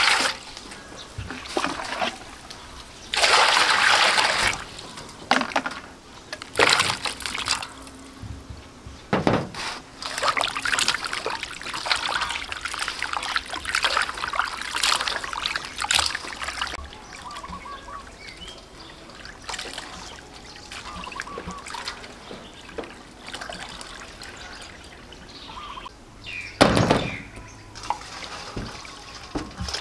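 Water pouring into a metal pot, then hands swishing and rubbing raw chicken feet in the water to wash them, with uneven bursts of splashing. A single thump near the end.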